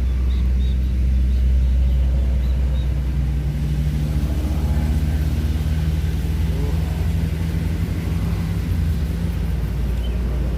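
A steady low rumble with a constant droning hum, with a few faint high chirps in the first few seconds.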